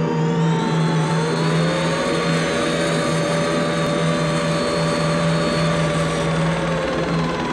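Aircraft engine and spinning rotor sound effect: a steady drone with a strong low hum, its pitch rising a little about a second in and sinking near the end.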